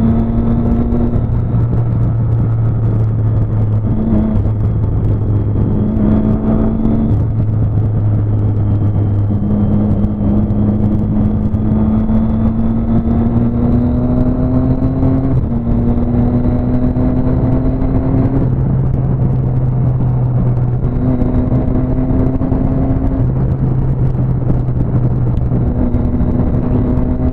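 Motorcycle engine running at a steady highway cruise, heard from the bike itself over wind noise. The engine note holds for a few seconds at a time, then steps to a new pitch or climbs slowly with small throttle changes.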